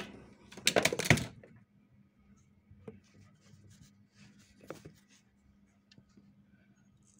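Clicks and knocks from a sewing machine's mechanism being turned over slowly by hand to check the feed-dog timing: a quick cluster of loud clicks about a second in, then a few faint ticks.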